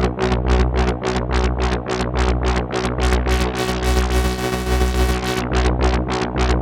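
Korg ARP 2600 FS synthesizer playing a rhythmic patch: a fast run of short plucky notes, about four or five a second, over a steady pulsing bass. About four seconds in, a brighter sustained tone sweeps open for a second or so, then falls back.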